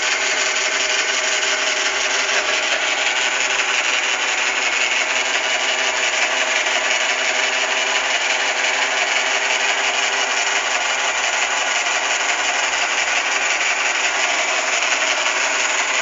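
Sharp Cocorobo robot vacuum cleaner running with a steady whirring motor noise while it drives back to its charging base after finishing cleaning.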